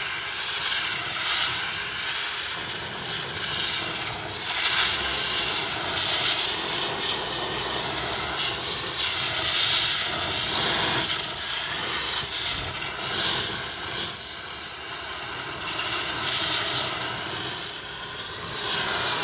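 Oxy-acetylene torch flame burning with a steady, loud hiss, heating a freshly welded cast iron manifold evenly after welding. The flame cuts off suddenly at the very end.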